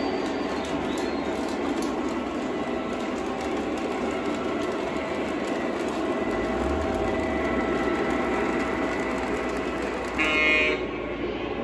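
Lionel O gauge model trains running on three-rail track, a steady rolling rumble with a faint steady hum. About ten seconds in comes a brief, louder high-pitched tone lasting about half a second.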